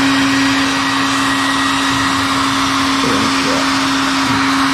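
Handheld hair dryer running steadily on its blower, a constant hum under a rushing hiss of air. It is being used to heat the vinyl decal so the bubbles under it flatten out.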